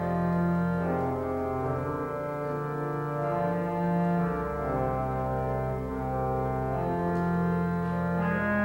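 Church pipe organ playing slow, held chords over a low pedal bass that moves to a new note every couple of seconds.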